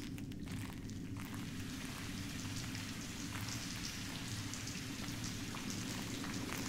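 Groundwater seeping through the rock roof of a mine gallery and falling in a steady rain of drips, denser from about a second in, over a low steady rumble. The heavy, continuous seepage is the sign of a gallery lying below the river level.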